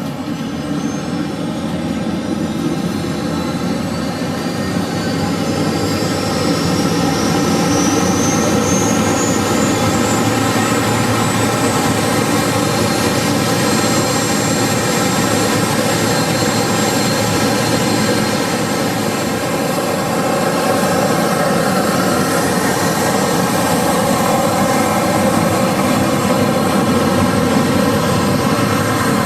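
Aircraft engine running loud and close. A high whine rises in pitch while the sound builds over the first several seconds, then holds steady.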